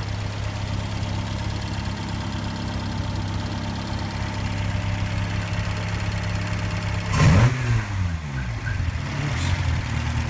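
Toyota 3TC four-cylinder engine with throttle-body fuel injection idling steadily in closed loop while the EFI is still learning the idle. About seven seconds in there is one brief, louder rise in engine speed that quickly falls back to idle.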